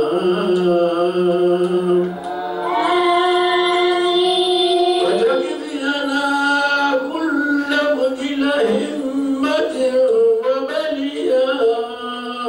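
Islamic devotional chant of a Mawlid recitation, sung by a man into a microphone, with long held notes that slide from one pitch to the next.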